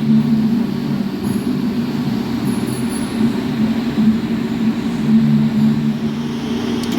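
TIG welding arc buzzing steadily as a weld is run around a joint.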